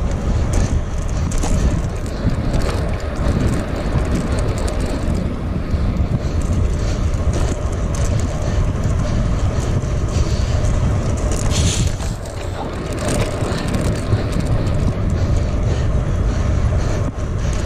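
Wind buffeting the microphone of a bicycle being ridden, a steady rushing noise that gusts in the low end, with the bike's road noise underneath.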